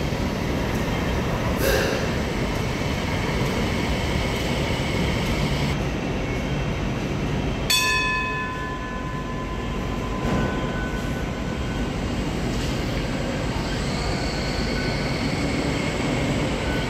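MTR Light Rail car running, heard from inside as a steady rumble and hiss. About eight seconds in a sharp ringing tone sounds and fades over a couple of seconds.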